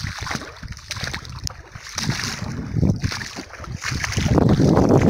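Feet wading through shallow, muddy river water, sloshing and splashing, louder near the end.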